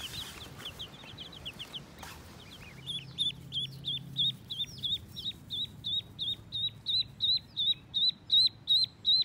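Duckling peeping: a flurry of fainter, quicker peeps at first, then from about three seconds in a steady run of loud, high peeps, about three a second, growing louder towards the end.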